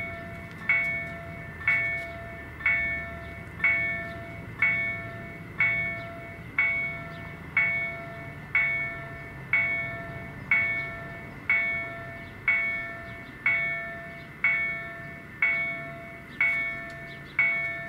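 Railway level crossing warning bell striking steadily about once a second, each stroke ringing and fading before the next. It sounds while the barriers are down and the red lights flash, warning of an approaching train.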